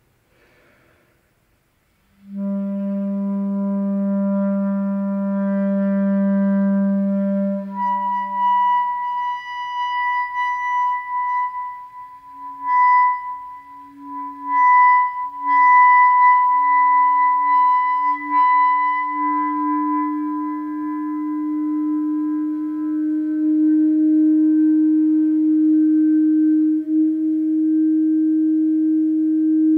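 Clarinet holding a low chalumeau note that starts about two seconds in. About eight seconds in, a left-hand vent hole is slowly uncovered and the sound breaks to a higher harmonic that wavers and pulses as other pitches come and go. From about nineteen seconds it settles into a steady, higher tone.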